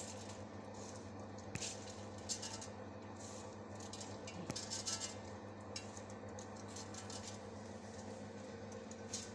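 Hands patting and pressing handfuls of cooked rice down into a cooking pot: soft, irregular patting and rustling with a couple of light knocks against the pot, over a steady low hum.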